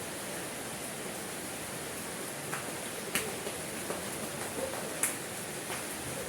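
Steady rain hiss. A scattering of sharp ticks comes in the second half, two of them louder, about three seconds in and about five seconds in.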